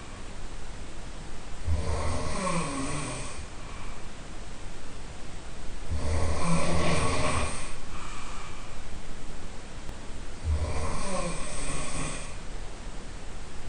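A person snoring loudly, heard from the room next door: three long snores, about one every four to five seconds.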